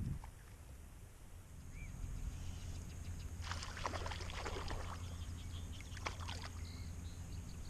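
Water sloshing and splashing in irregular bursts that start about three and a half seconds in, over a steady low rumble.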